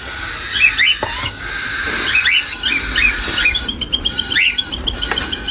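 A mix of aviary birds chirping: many short rising chirps overlapping, with a quick run of repeated short high notes past the middle and a single click about a second in.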